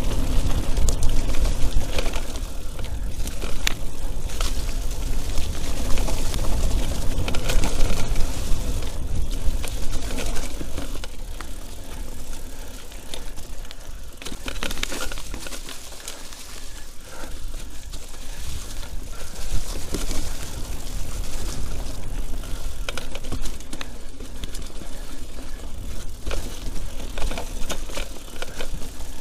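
Mountain bike being ridden over a wet, rough forest trail, picked up by an action camera on the bike or rider: a low wind rumble on the microphone, with the bike's chain and frame rattling and clicking over the bumps. It eases for a few seconds in the middle.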